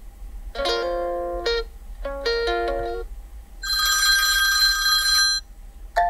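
Nubia RedMagic 7S ringtone previews from the phone's speaker. A short melody plays in two phrases in the first three seconds. About three and a half seconds in, a classic telephone-bell ring sounds for about two seconds, then cuts off.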